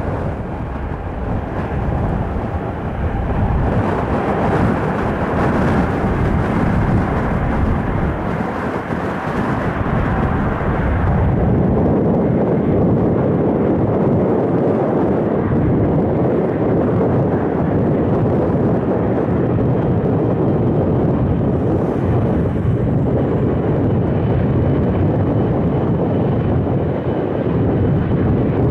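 Jet airliner passing close, a loud continuous rushing engine noise that grows louder and deeper about eleven seconds in and then holds steady.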